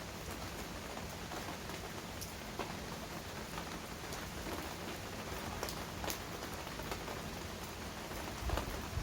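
Heavy rain falling in a steady hiss, with single drops ticking sharply every second or so. A low rumble swells in near the end.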